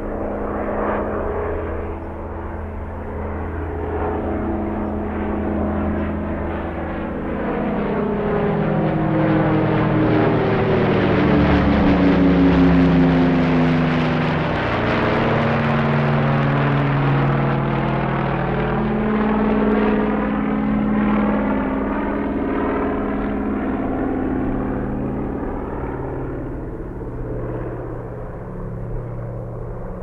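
Airplane flying overhead: its engine grows louder toward a peak a little before halfway, the pitch drops as it passes, and it then slowly fades away.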